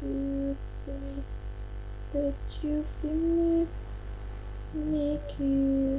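A person humming a slow tune: a string of about seven short held notes that step up and down in pitch, coming over a video-call microphone with a steady low electrical hum underneath.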